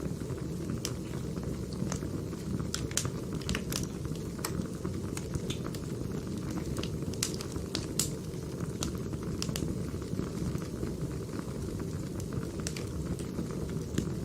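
Burning firewood crackling: a steady low rush of flames with many irregular sharp pops and snaps.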